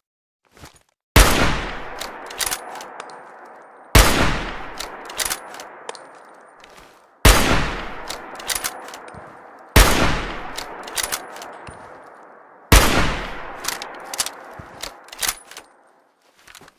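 Hunting rifle fired five times, a shot every two and a half to three seconds, each with a long echoing tail. Small metallic clicks come between the shots.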